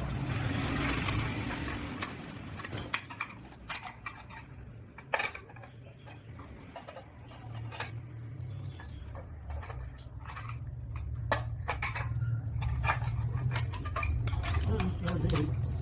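Parts of a table fan being handled and taken apart by hand: irregular small metal clinks, clicks and knocks, over a low steady hum.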